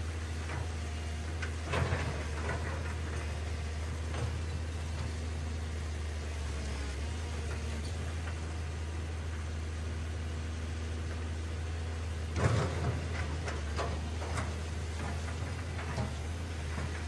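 Radio-controlled toy excavator working in sand: its drive runs with a steady low hum, and there are a few short scraping and clattering knocks as the bucket digs and swings, the loudest about twelve seconds in.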